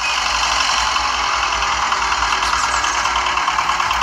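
Miniature model water pump and engine running steadily with a fast, even motor hum while it pumps water into a toy tank.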